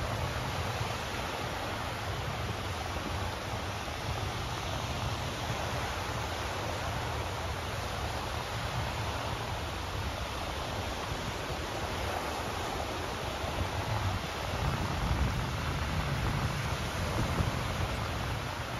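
Gulf surf breaking and washing up the beach in a steady hiss, with a low rumble that swells about fifteen seconds in.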